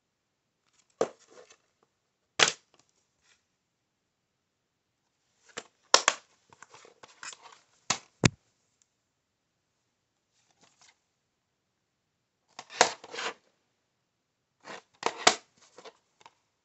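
Plastic DVD cases being handled: sharp clacks and knocks as cases are picked up and set down on a hard floor, with brief rustling, in several short bursts separated by quiet gaps.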